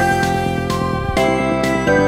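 Electronic dance track playing as background music: bright held synth chords over a steady beat.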